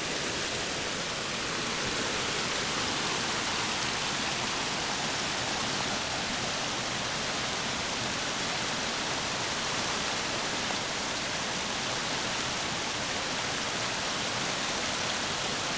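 Rain-swollen brook rushing in flood after heavy rain, a loud, steady wash of water noise.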